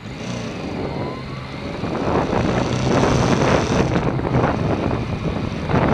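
Wind buffeting the microphone of a camera on a moving motorbike, loud and rough, over the bike's engine. The engine pitch rises in the first second as the bike picks up speed.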